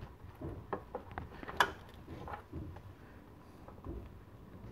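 Scattered light clicks and knocks of a clutch master cylinder and its fluid hose being handled and worked loose behind the brake booster. The sharpest click comes about a second and a half in, and the handling quiets in the last second or two.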